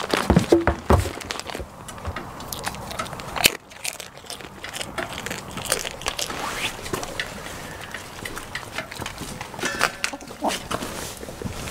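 Goats eating feed from small bowls: dense crunching and crackling with scattered clicks and knocks, and a few heavier knocks in the first second.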